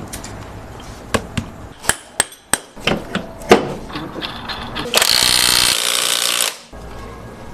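Metal tools knocking and clicking on car suspension parts during reassembly, a string of sharp single knocks. About five seconds in, a power tool runs in one burst of under two seconds and cuts off suddenly.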